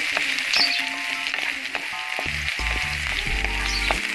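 Chopped onion and shallots sizzling in hot oil in a pan while a spatula stirs and scrapes them, with clicks of the spatula throughout: the aromatics being sautéed. Background music with low bass notes plays underneath from about two seconds in.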